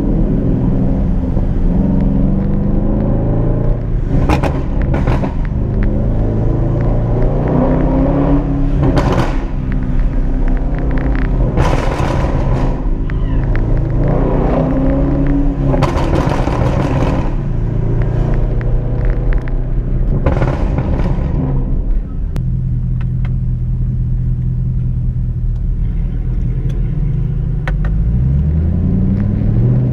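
Straight-piped Jaguar XF exhaust (open from the catalytic converters back): the engine accelerating, its note rising at the start and again near the end, with several loud crackling bursts in between.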